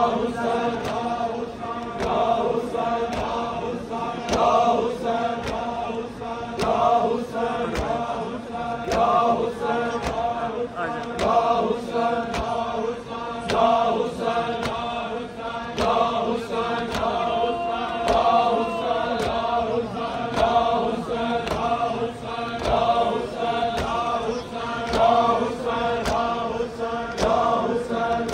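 Crowd of men chanting a Shia mourning chant together, over a steady beat of sharp chest-beating slaps (matam) a little faster than once a second.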